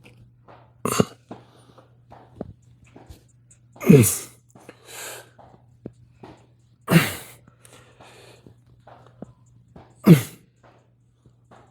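A man's forceful exhaled grunts during chin-ups, one short breathy burst falling in pitch about every three seconds, one for each rep. A steady low hum runs underneath.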